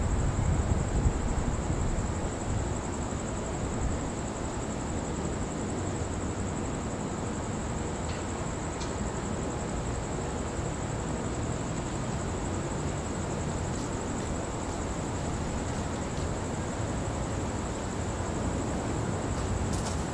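Thunderstorm outflow wind buffeting the microphone: a steady low rumbling noise, gustier in the first second or so.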